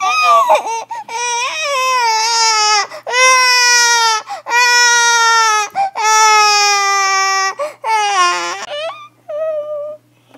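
A child's high voice imitating a newborn baby crying: about six long wails, each sliding down in pitch, then a couple of short, softer whimpers near the end.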